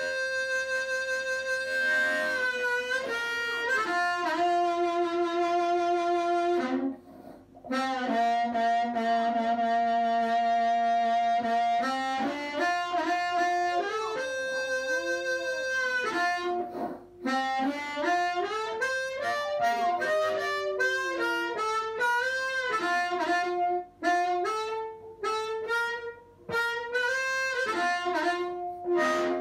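Harmonica played through a Dyna-Mic harp microphone and a small cigar-box amplifier: a tune of held notes and chords, with several bent notes and a couple of short breaks for breath.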